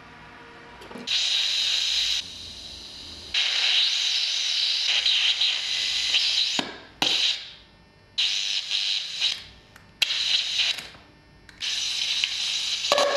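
Circuit-bent walkie-talkie putting out harsh hissing static with buzzy tones through its small speaker, cutting in and out abruptly about six times as wires are touched across its circuit board.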